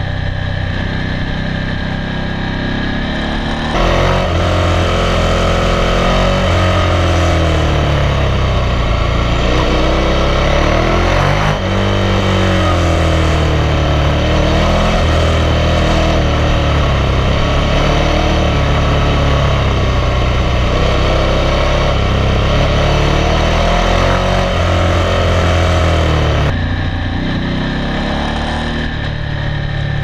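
Big V-twin adventure motorcycles riding, engine note rising and falling as they accelerate and ease off through bends. About four seconds in the sound becomes louder and fuller, heard from on board the KTM 1190 Adventure, and drops back to a thinner engine sound a few seconds before the end.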